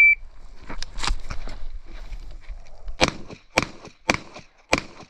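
A shot timer's start beep cutting off, then handgun shots on a USPSA stage: four sharp shots about half a second apart, starting about three seconds in, with shuffling before them.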